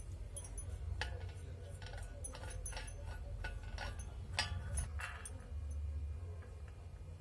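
Light clinks and taps of kitchen utensils, about a dozen scattered over the first five seconds, over a steady low hum.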